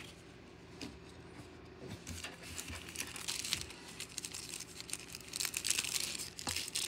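A trading card pack's wrapper being torn open and crinkled by hand. After about two seconds of quiet, the crackling starts, and it grows busier toward the end.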